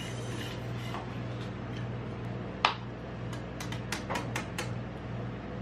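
One sharp metal clack about halfway, then a quick run of light metal clicks as steel tongs are worked open and shut, over a steady low hum.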